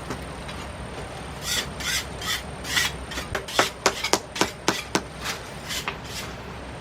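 Masonry hand work on kiln bricks: about four rasping scrapes, roughly two a second, then a quick run of about six sharp knocks near the middle, with a couple of fainter scrapes after.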